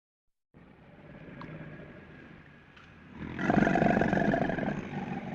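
American alligator calling: a low, rough, rumbling call that begins about half a second in, grows loudest about three seconds in, then eases off.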